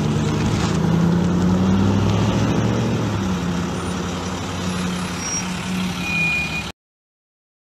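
Street traffic led by the deep engine hum of a large road vehicle passing close by. The pitch rises and then settles lower about three seconds in. The sound cuts off abruptly near the end.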